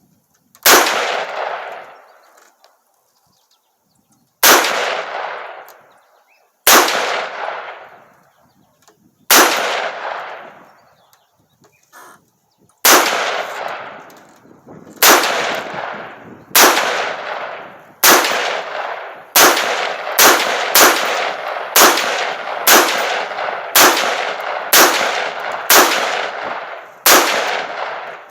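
AR-15 fitted with a Bear Creek Arsenal 7.62x39 upper firing about eighteen semi-automatic shots, each trailing off over a second or so. The shots are slow and spaced at first, then come about one a second from halfway on. The rifle is cycling reliably.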